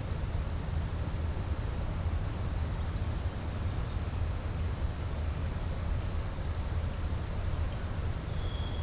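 Steady low outdoor rumble, such as wind on the microphone or distant traffic, with a few faint high chirps near the end.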